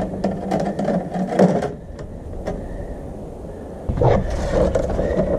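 Tape being unrolled and wrapped around a wire's end and a steel fish tape: crackling, rasping tape sounds, busiest in the first second and a half, then quieter. About four seconds in a louder low rumble comes in.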